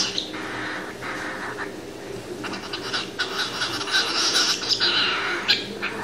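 A cockatiel nibbling at a piece of food held out to it by hand: scratchy scraping from its beak, with a run of quick pecking clicks in the second half and one sharper click near the end.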